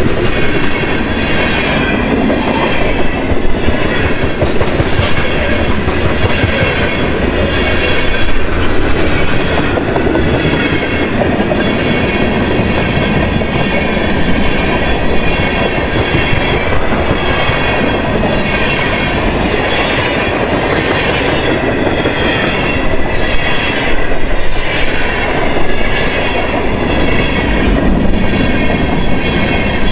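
Freight cars of a long train rolling past close by: a steady rumble of steel wheels on rail with a rhythmic clickety-clack as the wheel sets cross rail joints.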